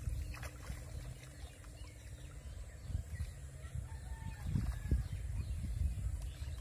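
Faint clucking of a chicken over a steady low rumble.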